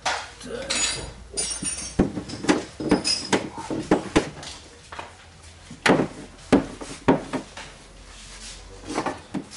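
Irregular knocks and clatter on a car door's sheet-metal inner panel as sound-deadening mat is worked onto it, about a dozen sharp knocks with short rattles between.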